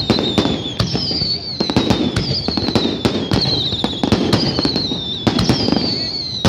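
Fireworks display: a rapid, irregular series of sharp bangs from aerial shells bursting overhead, with high whistles that fall in pitch, one after another about once a second.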